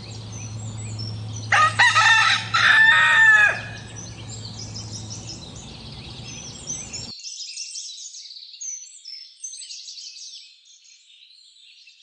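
A rooster crows once, a loud cock-a-doodle-doo lasting about two seconds and starting about a second and a half in. Small birds chirp throughout.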